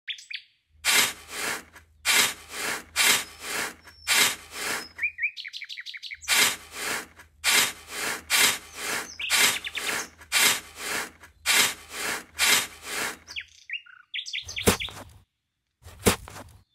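Rhythmic scraping strokes at about two a second, in two long runs with a short break between them, like a tool working wood. Short bird chirps come in the gaps, and a few separate strokes follow near the end.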